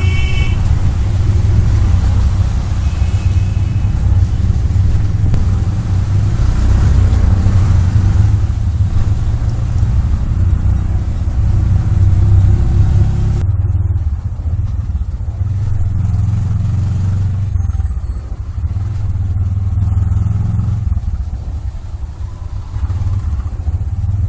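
Auto-rickshaw engine running as the three-wheeler drives through city traffic, heard from inside the open cab as a steady low rumble, with a short horn toot at the start.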